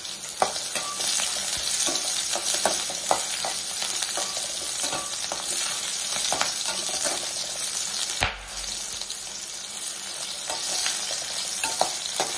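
Small onions and dried red chillies sizzling in hot oil in a kadai, with a metal spatula scraping and clicking against the pan as they are stirred.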